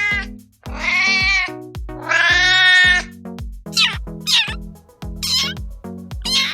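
Cat meowing over background music with a steady beat. Two long, drawn-out meows come in the first half, then several short, high-pitched mews.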